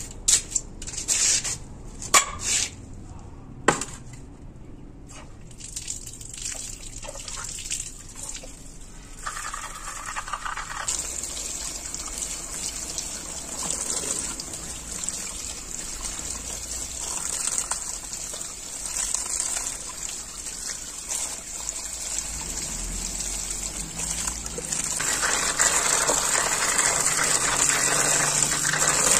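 A few sharp knocks, then tap water running and splashing into a metal tray in a plastic basin as leafy greens are rinsed by hand under the stream. The flow grows louder near the end.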